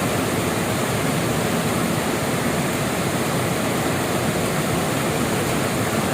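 Waterfall: water falling and rushing with a steady, unbroken roar.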